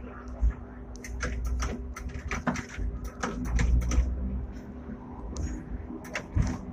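Hong Kong double-deck tram No. 120 running on its tracks, heard from the driver's cab. Its body and fittings rattle with frequent irregular sharp clicks and knocks over a low rumble and a faint steady hum.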